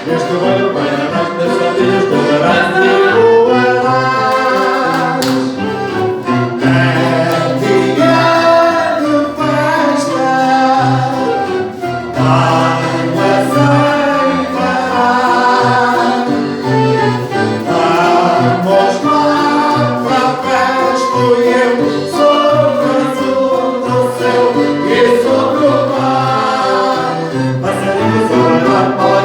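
Live band playing dance music with singing over a steady bass line.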